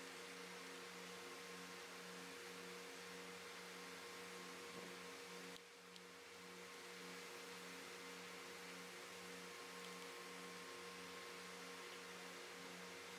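Faint steady machinery hum, several low tones with one pulsing about twice a second, over a soft hiss.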